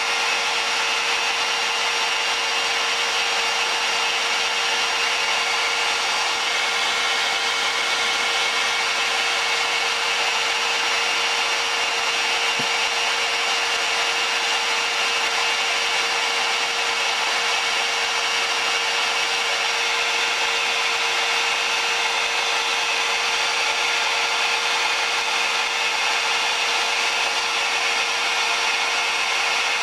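Steady fan-like whir of running electronic equipment, an even hiss with a constant mid-pitched hum tone and fainter steady whines above it.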